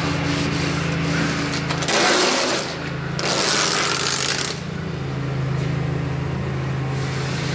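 Masking tape being pulled off the roll and laid along a truck's bed rail, with two long rasping pulls about two seconds in and again a second later. A steady low mechanical hum runs underneath.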